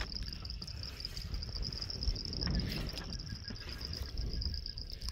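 Insects chirring in one steady high-pitched note, over a low rumble.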